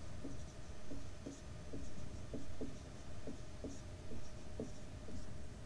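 Marker pen squeaking and scratching on a whiteboard while writing, in a series of short, quiet strokes.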